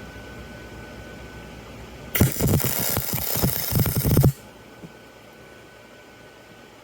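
Aluminum MIG weld laid with a spool gun: one arc burst of about two seconds, a loud crackling hiss that starts about two seconds in and cuts off suddenly.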